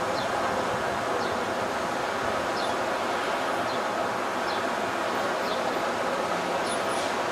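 Steady outdoor noise over a demolition site, a constant hum of distant machinery and city traffic, with short high chirps repeating about once a second.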